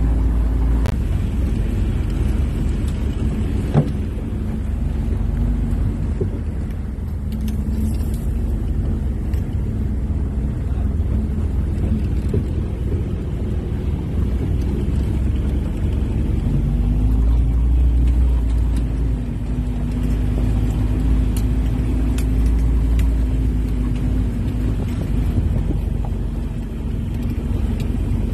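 WWII Willys Jeep's four-cylinder side-valve engine running under load as the Jeep drives over a rough off-road track, heard from inside the open vehicle as a steady low rumble. The engine note wavers and climbs a little past the halfway point, and there is one sharp knock about four seconds in.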